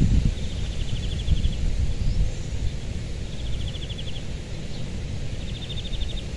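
Wind rumbling on the microphone, gustiest near the start. Over it, a short, high trill of rapid pulses repeats three times, about two seconds apart.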